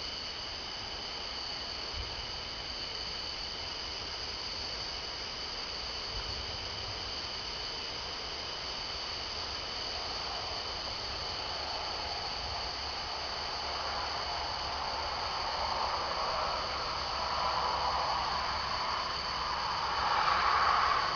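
Night insect chorus: a steady, high, two-pitched buzzing. In the second half a broad rushing noise swells in and is loudest near the end.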